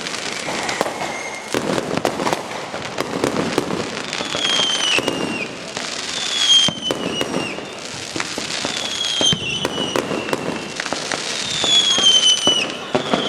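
Fireworks going off: a dense crackle of sharp pops and bangs. From about four seconds in there are whistles every second or two, each falling in pitch.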